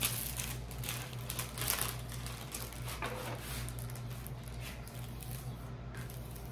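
Light handling noise from a diamond-painting canvas: scattered faint clicks and crinkles, more of them in the first half, over a low steady hum.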